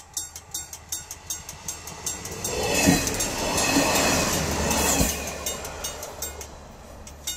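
TrainOSE MAN diesel railcar passing a level crossing at close range: its engine and wheels build to a loud rush about two and a half seconds in, with a few heavy thuds as the wheels cross, then fade as it draws away. The crossing's warning signal dings rapidly, about four to five strokes a second, before and after the loudest part.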